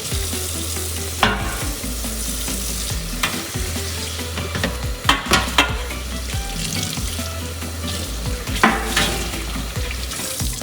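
Instrumental music with a stepped bass line and sharp percussive hits, over a steady hiss.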